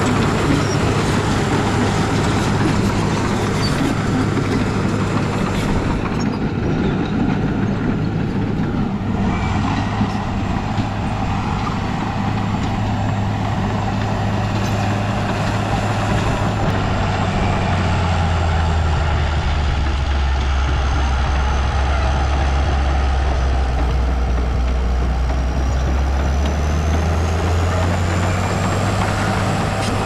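Heavy diesel engine of an earthmoving machine running steadily under load, with a thin high whine above it. Past the middle its note drops lower for about ten seconds, then rises again.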